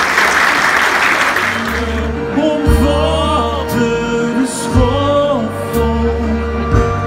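Audience applause that dies away in the first second and a half, then a live duo playing: a singer with guitar over held bass notes.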